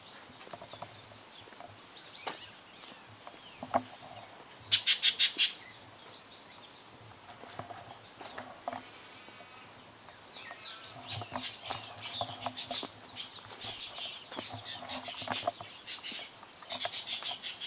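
Songbirds chirping and twittering. There is a loud rapid run of chirps about five seconds in, and busier, denser chattering from about ten seconds on.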